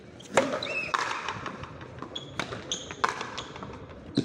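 Frontenis ball struck by rackets and smacking off the frontón wall: about five sharp, echoing hits during a rally, the loudest about half a second in, with a few brief high squeaks between them.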